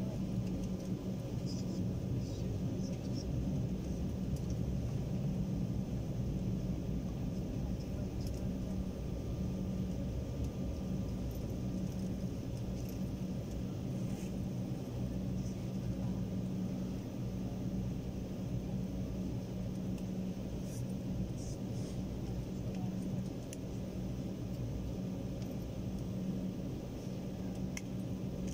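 Airliner cabin noise while taxiing: jet engines at idle and the rolling of the wheels make a steady low rumble and hum, with a faint thin whine over it.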